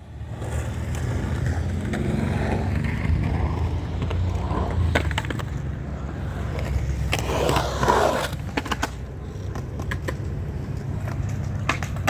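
Skateboard rolling through a skatepark bowl: a steady low rumble of the wheels, with a few sharp clacks of the board from about five seconds in and several near the end.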